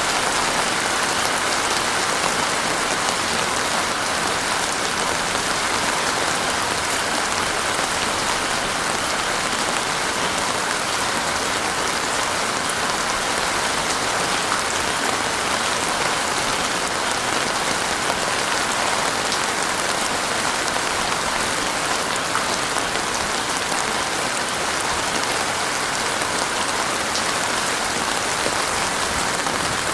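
Heavy rain falling steadily, a dense even hiss with many small drop impacts.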